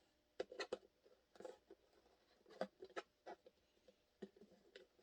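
Faint, irregular clicks and taps from hands handling hard plastic holster parts and small hardware, a cluster in the first second and then a few scattered ones.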